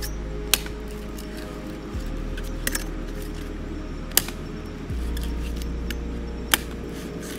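Machete chopping into a coconut's husk on a wooden plank: a series of sharp, separate chops a second or two apart. Background music plays underneath.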